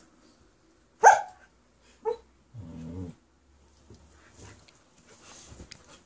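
Siberian husky and Samoyed play-fighting: one sharp, loud bark about a second in, a shorter bark a second later, then a low growl lasting about half a second.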